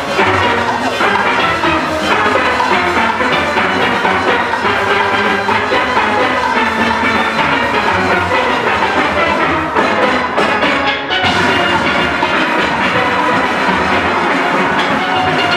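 Full steel orchestra playing: many steelpans sounding a fast, dense arrangement together over drums keeping the beat, with a brief dip in the highest notes about eleven seconds in.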